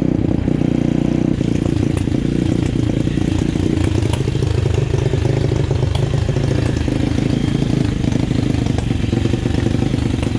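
Flex 150 RS pit bike's single-cylinder four-stroke engine running as the bike slows and stops, its pitch dropping in the first couple of seconds, then idling steadily.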